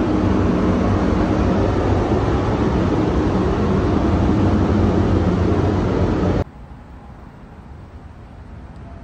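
Steady loud rush and low hum of a spray paint booth's ventilation fans. It cuts off suddenly about six seconds in, leaving a much quieter steady background.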